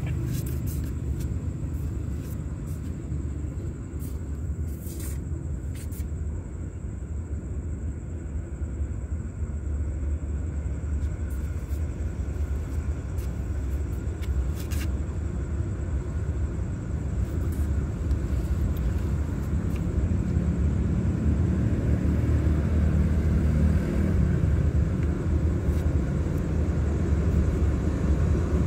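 Train approaching a station at night, its locomotive engine a low rumble that grows steadily louder as it nears.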